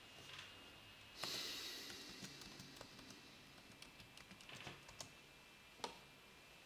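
Computer keyboard keys being typed in scattered, faint strokes as a password is re-entered. A louder single key press near the end submits it, and there is a brief hiss about a second in.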